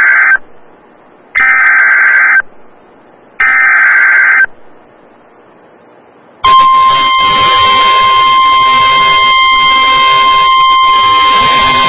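NOAA Weather Radio alert tones. Three short buzzy SAME digital header bursts, about a second apart, are followed after a two-second pause by the loud, steady 1050 Hz warning alarm tone starting about six and a half seconds in. Together they announce a new weather alert broadcast.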